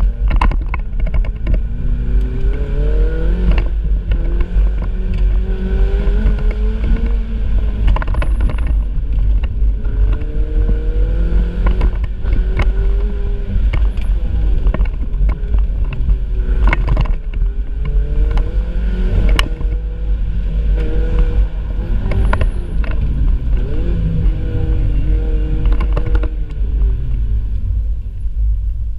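Ferrari 488 Spider's twin-turbo V8 under way, its note climbing and dropping back again and again as the car pulls through the gears, over a heavy low rumble. A few sharp knocks punctuate it, and the engine note falls away near the end.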